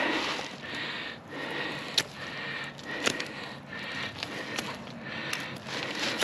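Knife cutting and scraping through a wild boar's hide and meat along the ribs, with rustling and a few sharp clicks, the loudest about two and three seconds in.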